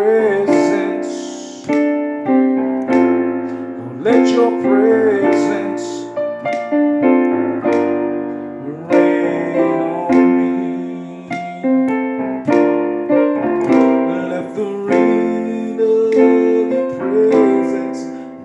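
Keyboard, in an electric piano sound, playing held chords in a slow gospel worship instrumental passage, a new chord struck every second or two.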